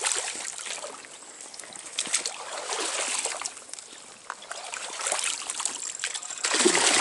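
Water of a small trout stream trickling and splashing close by, with scattered short splashes and clicks; it grows louder about six and a half seconds in.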